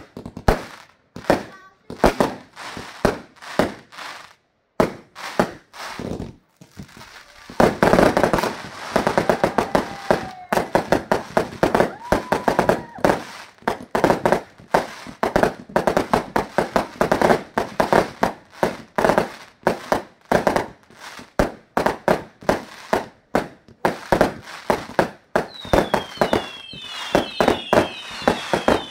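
Fireworks display: aerial shells bursting with bangs and crackle, sparse at first, then building into a dense, rapid barrage about seven or eight seconds in. Several falling whistles sound near the end.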